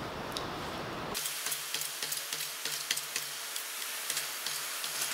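Metz hand-lever shrinker stretcher in a vise, shrinking a short folded metal strip into a curve: light metal clicks repeating about three a second from about a second in, over a faint hiss.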